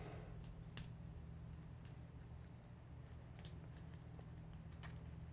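Faint handling sounds of nylon webbing being threaded through a plastic tri-glide buckle, with a few light, scattered clicks over a steady low hum.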